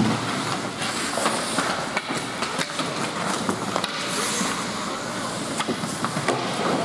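Ice hockey rink sound: skates scraping and carving the ice and sticks clacking on ice and puck, with many sharp clicks throughout. A loud bang at the very start, from play hitting the boards and glass.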